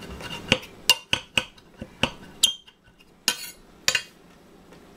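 A chef's knife chopping fresh herbs on a granite cutting board, the blade clacking sharply against the stone in about a dozen irregular strokes.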